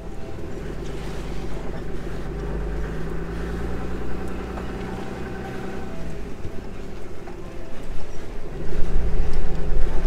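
Pickup truck engine running, heard from inside the cab as the truck drives slowly. It grows louder about eight and a half seconds in as the truck pulls out onto a paved road and accelerates.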